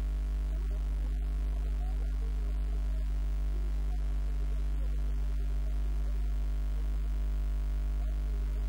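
Steady low electrical mains hum with a buzzy series of overtones above it, unchanging throughout.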